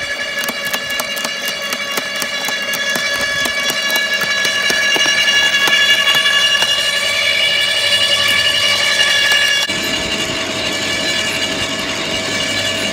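Makita UD2500 electric garden shredder running with a steady whine while its cutting drum crunches a branch, with many sharp cracks and snaps of breaking wood, thickest in the first few seconds. About ten seconds in the running sound changes abruptly to a lower, rougher tone.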